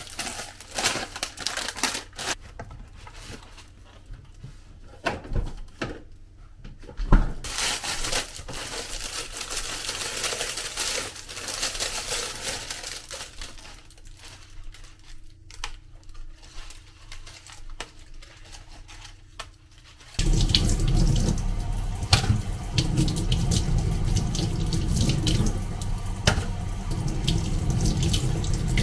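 Rustling and light knocks of groceries and plastic packaging being taken out of an insulated shopping bag. About two-thirds of the way through, a kitchen tap is turned on and runs steadily, splashing as salad greens are rinsed in a metal colander.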